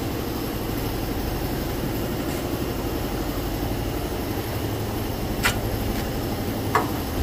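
Steady rush of air blowing across the microphone, fluttering in the low end, with two light clicks in the second half.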